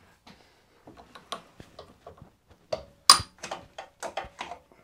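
A run of irregular metallic clicks and knocks from hands working the vise and handles of a milling machine, with one sharp clank about three seconds in that rings briefly.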